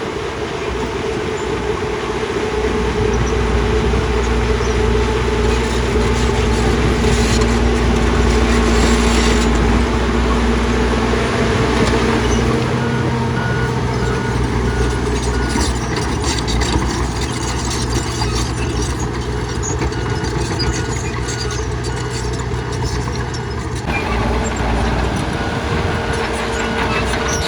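Hyundai excavator's diesel engine running steadily under work. From about halfway through, a run of short, evenly spaced high beeps sounds over it.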